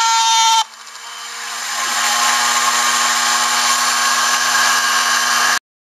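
CNC mill's spindle and end mill cutting a fibreboard (MDF) sheet. A high-pitched whine that steps in pitch cuts off abruptly under a second in, then a steady cutting noise with a constant hum builds up over about a second and runs on until it stops suddenly near the end.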